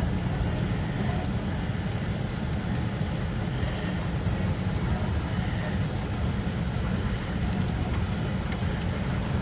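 Steady low rumble of an all-wheel-drive Cadillac Escalade driving on snowy roads, its tyre and engine noise heard from inside the cabin.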